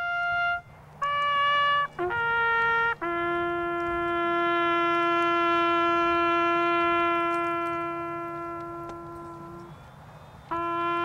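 A bugle playing a slow, mournful call: three short notes stepping downward, then a long held low note that slowly fades. The call starts again near the end.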